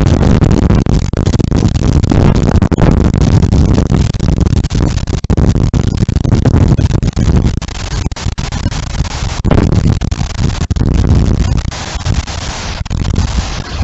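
Storm-force wind gusting hard against the microphone: a loud, deep buffeting rumble with crackling, easing somewhat partway through and again near the end.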